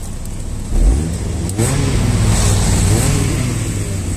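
Honda Civic hatchback's engine revving, starting about a second in, its pitch rising and falling several times.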